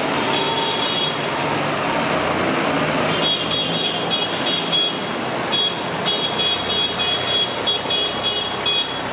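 Farm tractors' diesel engines running as they drive past one after another, with a string of short, high-pitched toots repeating from about three seconds in.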